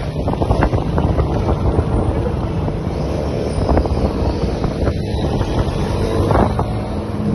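Sport motorcycle engines running at low speed as bikes roll slowly past, with wind buffeting the microphone.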